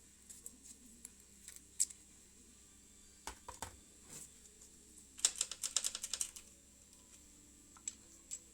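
Light, sharp clicks and taps of hand tools and small metal parts being handled, with a quick run of about a dozen rapid clicks a little past the middle.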